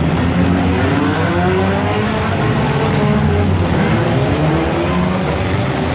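Several demolition derby cars' engines revving at once, their pitches rising and falling over one another in a continuous loud din.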